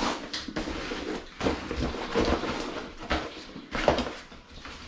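Grey fabric Hiccapop nursery organizer bag being unfolded and pulled open by hand: a handful of irregular fabric rustles and swishes.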